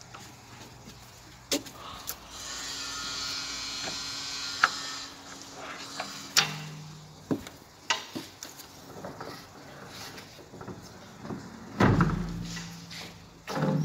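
Frameless 10 mm tempered-glass accordion panels being slid by hand along their track: a steady rolling run for about three seconds, then a series of clicks and knocks as the panels are moved and meet, with a heavier thump near the end.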